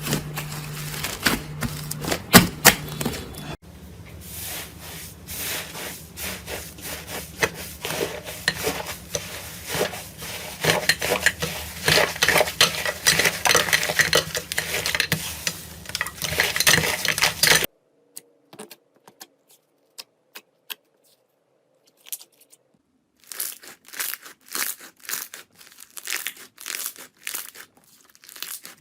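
Slime being squeezed and pressed by hand: quick runs of sticky crackles, pops and clicks. The crackling stops abruptly about eighteen seconds in, the next few seconds are almost silent, and it picks up again near the end.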